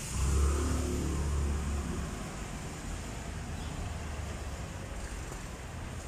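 A motor vehicle's engine running, loudest for about the first two seconds, then fading into a steady low traffic rumble.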